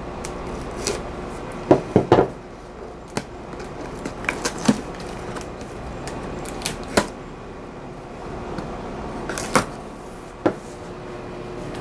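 A cardboard box being opened: packing tape cut with a knife, then flaps and packing handled, giving scattered knocks, taps and rustles a second or two apart.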